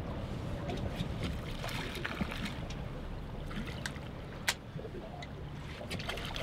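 Wind and choppy water lapping against a small boat's hull, with scattered small splashes and clicks as a fish is reeled up alongside; a sharp tick stands out about four and a half seconds in.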